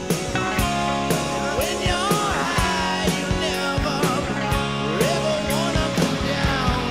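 Rock music with a steady drum beat, guitar and a singing voice.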